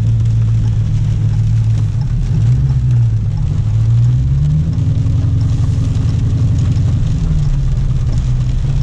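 Dodge Hellcat's supercharged 6.2-litre V8 running at low speed, a steady low drone that steps up in pitch about four and a half seconds in and holds there.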